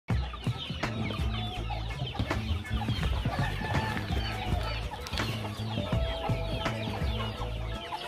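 A flock of free-range chickens clucking and calling around the feeder, many short clucks overlapping, with one longer held call near the end; background music plays underneath.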